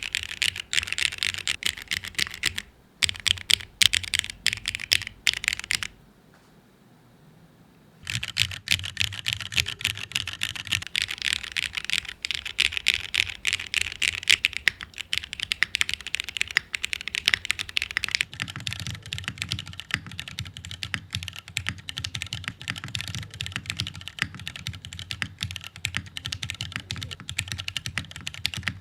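Fast, continuous typing on a TOFU TKL custom mechanical keyboard with linear Cherry MX Black switches on 45g springs and PBT keycaps. There is a short pause about 3 s in and a longer one about 6 s in, after which the typing resumes.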